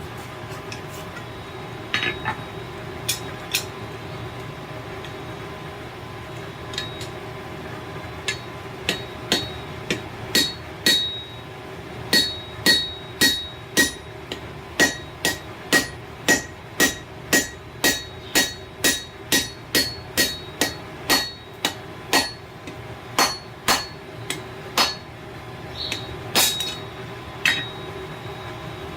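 Hand hammer striking hot steel on an anvil while a railroad spike is forged into a chain hook, each blow ringing. A few scattered blows at first, then a steady run of about two blows a second for roughly fifteen seconds, tapering to a few last strikes near the end.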